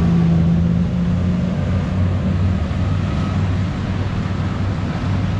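RNLI all-weather lifeboat's diesel engines running at speed as it pulls away: a steady low drone that eases slightly after about a second and a half. Its wake washes up onto the slipway.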